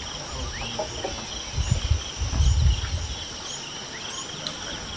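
Steady high-pitched chorus of insects with scattered short bird chirps, and a low buffeting rumble from about one and a half to three seconds in.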